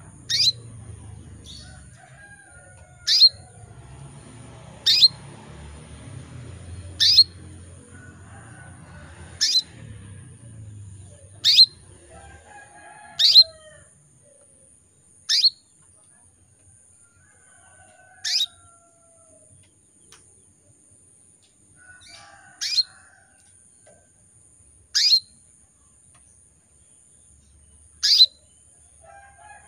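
Female canary in breeding condition giving her calling chirp to draw a male. There are about a dozen short, sharp calls, each a quick downward sweep in pitch, two to three seconds apart.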